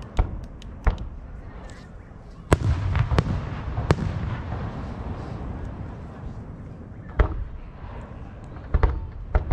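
Fireworks display going off: about eight sharp bangs at irregular intervals, with a low rumble lingering between them.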